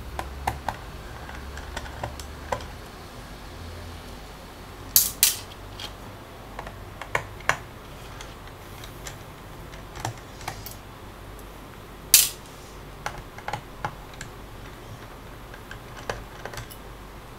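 Scattered small clicks and taps of a screwdriver taking out the four screws that hold the hard drive in the laptop's base, with a few louder sharp clicks: a close pair about five seconds in and one about twelve seconds in.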